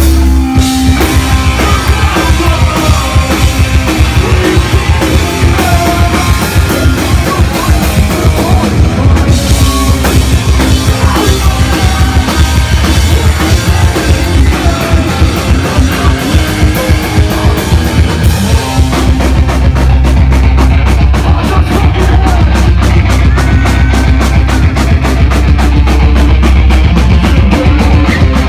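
Live heavy rock band playing loud, with fast drumming under bass and electric guitars. After a held low note, the full band comes in just after the start. About two-thirds of the way in, the drums change to a steadier, faster beat.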